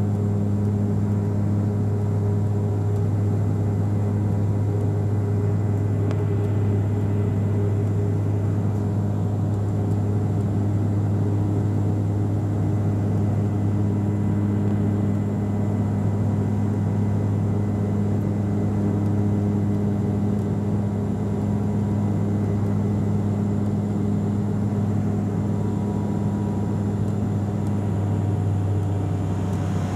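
Bombardier Q400's Pratt & Whitney PW150A turboprops and six-bladed propellers heard from inside the cabin while climbing after takeoff: a loud, steady low drone with a strong propeller hum. The tone of the hum shifts slightly near the end.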